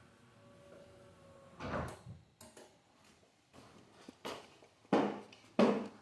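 Footsteps, about one every two-thirds of a second, loudest near the end.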